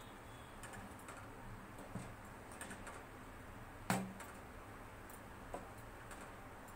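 A plastic spoon stirring curdling milk in a stainless steel pot, with faint taps and scrapes of the spoon against the pot and one sharper knock about four seconds in. The milk is splitting into curds after lime juice was added, a stage in making paneer.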